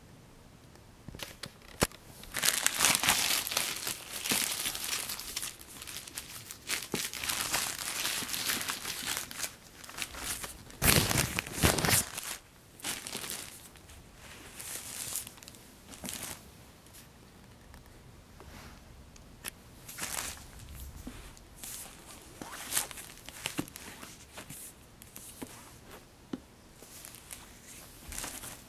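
Plastic shopping bag crinkling and rustling as it is handled and opened, loudest in the first half, with a heavier burst of handling noise about eleven seconds in; lighter rustles and clicks follow.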